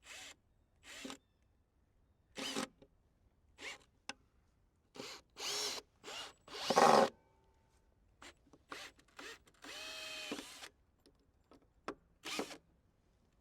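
Power drill driving wood screws into boards in a series of short trigger bursts, the motor's whine rising and falling with each one, with a longer run of about a second past the middle.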